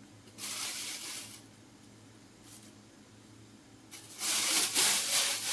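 Thin plastic bag crinkling as hands handle it: a short burst about half a second in, then a louder, longer stretch from about four seconds in, over a low steady hum.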